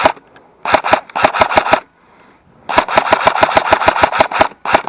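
Airsoft rifle firing full-auto in rapid bursts of sharp cracks, with a short pause near the middle, as BBs are sprayed at a van.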